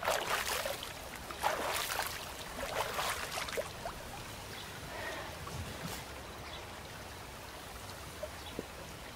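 Hands scooping water from a stone trough and splashing it onto a face: a quick run of splashes over the first three to four seconds, then only faint background.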